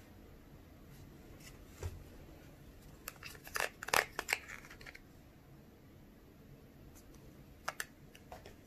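Thin plastic candy-kit tray crinkling as it is bent and scraped with a small plastic spoon to get the ketchup gel out. A dense run of crackles and scrapes in the middle, with a few light taps and clicks before and after.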